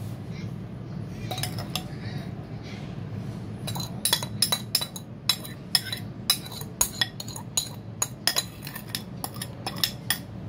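A metal spoon clinking and scraping against a ceramic bowl as fish sauce is scooped out onto shredded green mango. The clinks are quick and irregular, coming thick and fast from about four seconds in, over a steady low hum.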